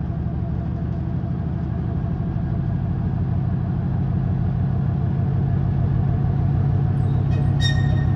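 2TE10V diesel locomotive's 10D100 two-stroke opposed-piston diesel engine running with a steady low throb, growing gradually louder. A few short high-pitched squeaks come in near the end.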